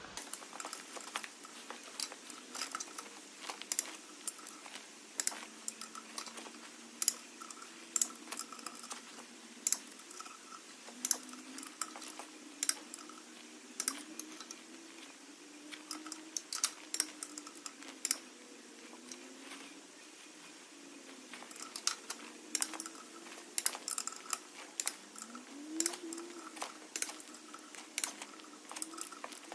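Ratchet-head torque wrench clicking in short irregular runs as the clutch cover bolts are torqued up on the flywheel.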